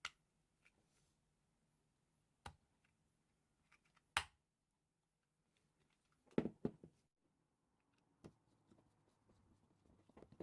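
Small parts being handled and set down by hand: a few single sharp clicks a couple of seconds apart, and a short cluster of louder knocks about six and a half seconds in, with near silence between.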